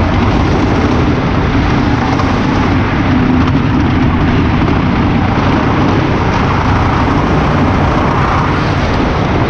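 A wooden roller coaster train running at speed along its track, heard from on board as a loud, steady rumble of wheels on the wooden track.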